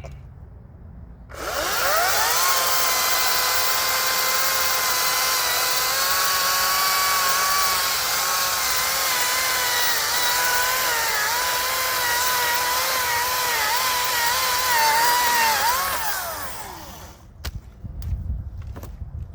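Hart chainsaw spinning up with a rising whine about a second in, then cutting through a mesquite trunk for about fifteen seconds, its pitch dipping and wavering as the chain bites under load, before winding down and stopping. A few low thuds follow near the end.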